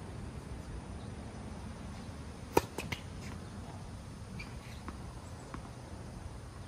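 A single sharp tennis ball impact about two and a half seconds in, followed by a few much fainter ticks over steady low background noise.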